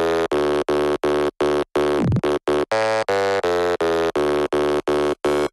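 Electronic dance music: a buzzy synthesizer playing short, evenly chopped chords about three times a second, with a brief downward pitch sweep about two seconds in.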